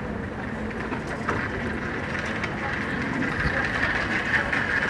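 Casters of wheeled, metal-framed partition boards rolling over stone paving: a steady rattling rolling noise.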